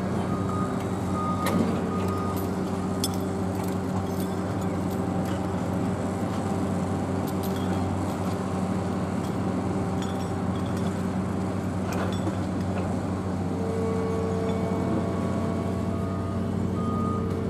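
Steady engine hum of port cargo-handling machinery: forklifts and heavy plant working on the quay. A high beeping comes in near the start and again near the end, and a few short knocks fall in between.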